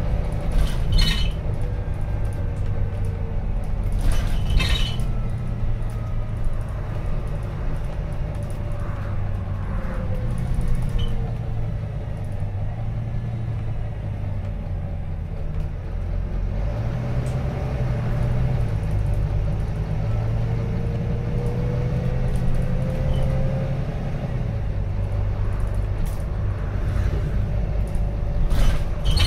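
Inside a Volvo B9TL double-decker bus under way: its diesel engine runs steadily, the engine note stepping up and down several times, with a faint whine rising in pitch about two-thirds of the way through. A few brief rattles from the bus's fittings come about a second in, a few seconds later, and near the end.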